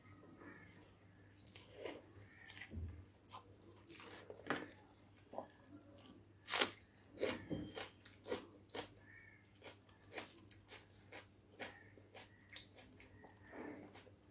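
Close-miked eating sounds of egg biryani with gravy eaten by hand: chewing, biting and mouth clicks in a string of short separate sounds, the loudest about six and a half seconds in. Includes bites of raw onion slice.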